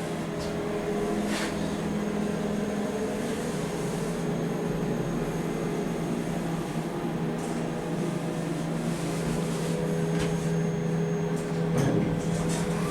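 Steady hum of a KONE EcoDisc passenger lift car travelling between floors, with a few light clicks.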